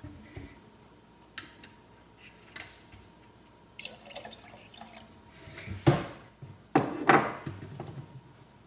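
Milk being poured from cup to pot, with the knocks and clinks of the measuring cup and containers being handled; the sharpest knocks come about six and seven seconds in.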